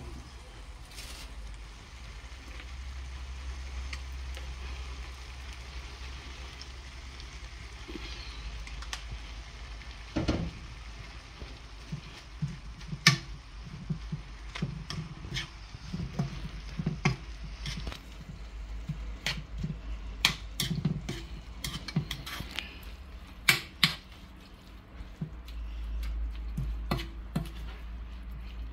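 Green chili peppers sizzling gently in a nonstick frying pan over a low steady hum. From about ten seconds in, a metal spoon stirs them and repeatedly clicks and knocks against the pan.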